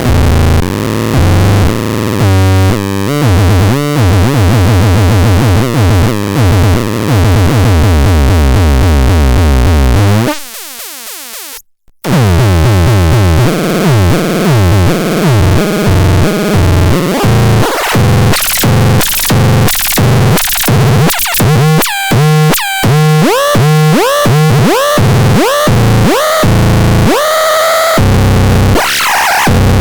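Loud, harsh electronic synthesizer sound: dense buzzing tones over a heavy bass drone, fading out and cutting to silence for a moment about eleven seconds in, then returning as rapid chopped pulses with sweeping pitches and higher tones.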